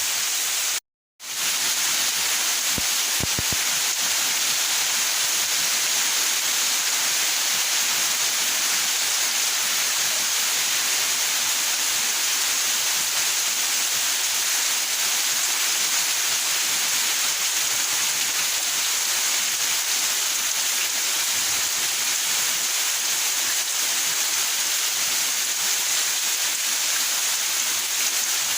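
Steady heavy rain falling in a backyard: a dense, even hiss. The sound cuts out completely for a moment about a second in, then resumes.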